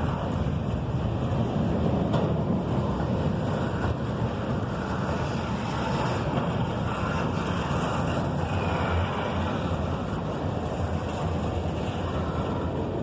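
CSX freight train rolling past, its cars giving a steady rumble and rush of steel wheels on rail.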